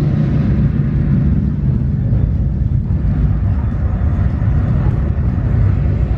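Simulated volcanic eruption played through an exhibition sound system: a loud, steady, deep rumble.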